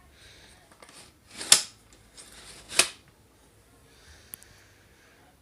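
Two short, sharp puffs of breath about a second and a half apart, blowing dust out of an opened printer, with softer breathy hiss between them.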